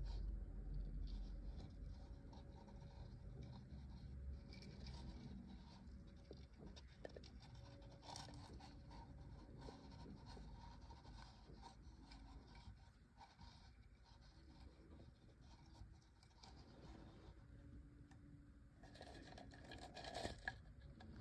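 Near silence with faint, scattered scratching and rubbing, a little louder near the end.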